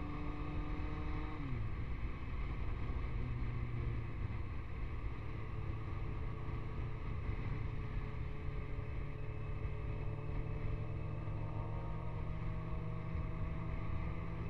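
Vehicle engine running: the revs drop sharply about a second and a half in, then settle to a steady idle, with the pitch creeping up slightly near the end.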